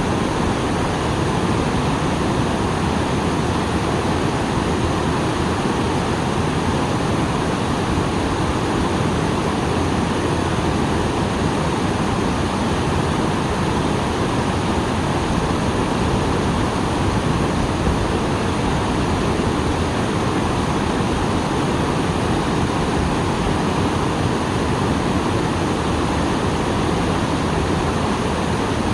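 Small waterfall after rain: a steady, loud rush of falling water without let-up.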